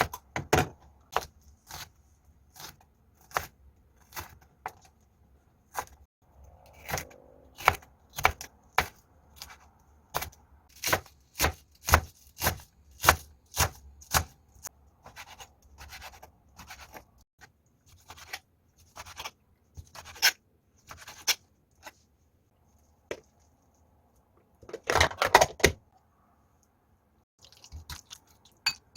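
Kitchen knife striking a cutting board in a run of sharp knocks, often about two a second, with a quick flurry about 25 seconds in.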